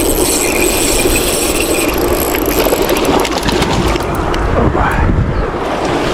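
Spinning reel being cranked against a hooked trout that is still fighting, with a high whirring hiss over the first two seconds or so. Wind rumbles on the microphone throughout.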